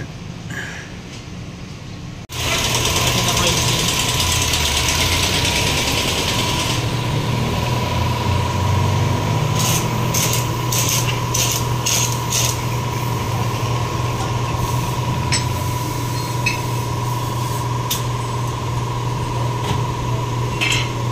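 A steady machine hum with a constant faint high tone starts suddenly about two seconds in and runs on; a quick run of light clicks and taps comes about halfway through.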